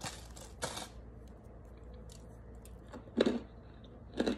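Plastic water-bottle shell being peeled and cracked off a hard, oven-baked block of packed starch, making scattered crinkles and snaps. There are two louder crunchy cracks, about three and four seconds in.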